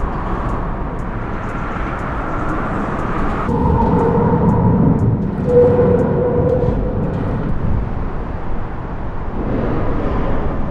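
Distant city ambience: a steady low rumble of traffic, with engine tones rising out of it in the middle and faint high ticks. The character shifts twice, about three and a half seconds in and near the end.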